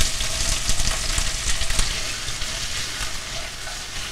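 Sliced onion sizzling in hot ghee with whole spices in a pan as it is stirred with a spatula, the steady frying hiss broken by light scrapes and ticks; it eases slightly near the end.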